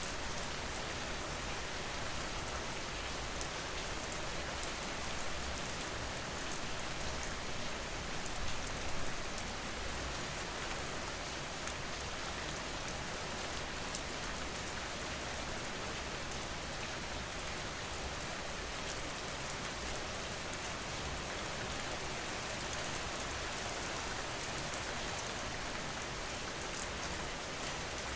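Steady rain falling, a dense even hiss of drops on a surface, with a few slightly louder patches of drops about eight to nine seconds in.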